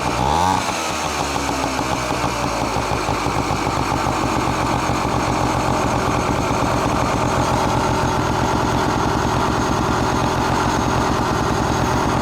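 Kymco Sooner 100 scooter engine breathing through a makeshift silencer used as a homemade muffler: a quick rev that falls away in the first half second, then steady idling with a loud exhaust note.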